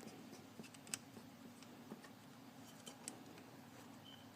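Near silence with a few faint, separate clicks about a second apart: small metal parts being handled while a throttle cable is tightened onto a motorcycle carburetor.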